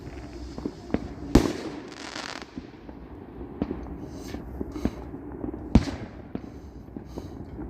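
Fireworks going off: irregular pops and bangs, the two loudest about a second and a half in and near six seconds in, with a short crackling hiss after the first.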